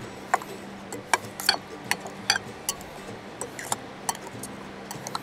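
Kitchen knife cutting young coconut meat into small pieces on a cutting board: a run of light, irregular taps and clicks, about three a second, over a low steady hum.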